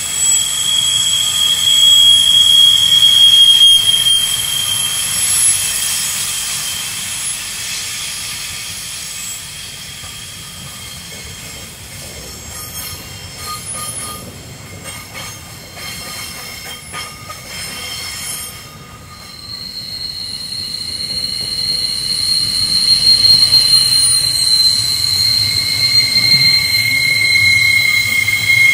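Freight train's container wagons passing on a curve, their wheels giving a loud, high-pitched squeal. The squeal dies down to a quieter stretch of clicking and rattling in the middle, then returns on two pitches near the end.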